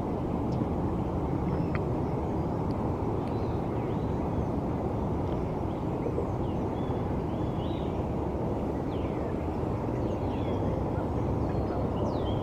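Steady low rumble of distant city traffic, with small birds giving scattered short chirps and quick high calls over it.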